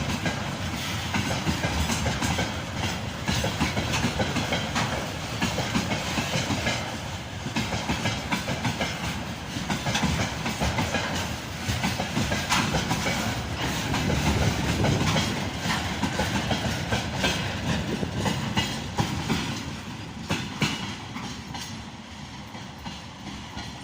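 Train wheels clattering over rail joints: a steady rumble full of rapid clicks and knocks, fading in the last few seconds.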